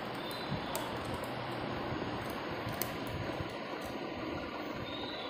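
Scattered light clicks of a small screwdriver on the screws of a laptop's SSD slot as they are undone, over a steady background hiss.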